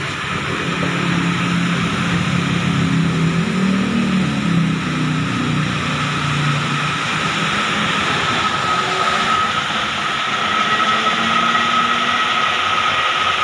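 Hyundai H-1 van running in gear on a lift, its rear wheel spinning freely, with a steady drivetrain whine that grows stronger about ten seconds in. The run checks the automatic transmission, which had been stuck in fourth gear, after its valve body was cleaned and the fluid refilled.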